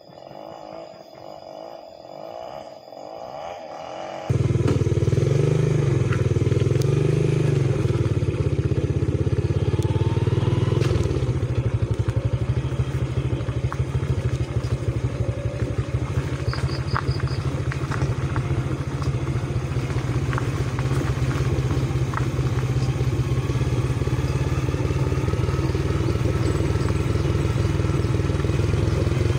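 Motorcycle engine running steadily while riding, with light rattling and clatter from the bike; its pitch wavers briefly just after it cuts in. It starts abruptly about four seconds in, after a few seconds of faint outdoor ambience.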